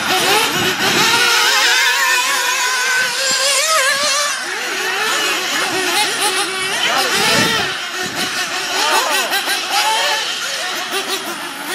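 Several nitro RC buggies' small glow-fuel two-stroke engines screaming at high revs, their pitches rising and falling and overlapping as the cars accelerate and brake around the track.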